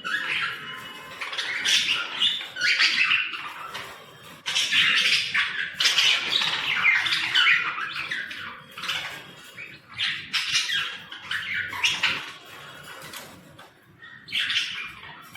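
Budgerigars chattering and squawking, several birds calling over one another in loud bursts, with short lulls about four seconds in and near the end.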